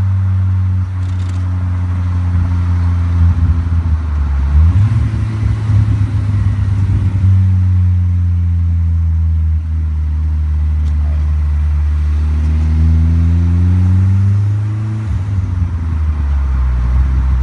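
Engine of an open-bodied custom kit car pulling the car along in traffic. Its low note climbs and falls with throttle and gear changes, rising steadily late on before dropping back.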